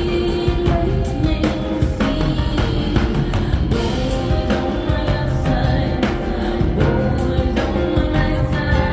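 Live rock band performance: a woman sings long held notes over a band with a steady drum beat.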